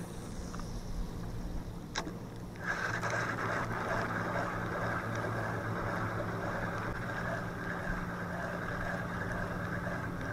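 Spinning reel: a sharp click of the bail closing about two seconds in, then the steady whirr of the reel being cranked as a popper lure is retrieved.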